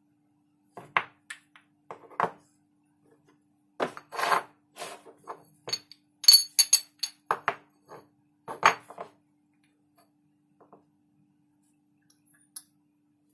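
Black plastic shell and metal parts of a KJ Works M4 gas-blowback airsoft magazine handled during disassembly: an irregular run of clicks, knocks and rattles as the shell is worked with a thin metal rod, the sharpest clicks about halfway through, dying out after about nine seconds. A faint steady hum lies underneath.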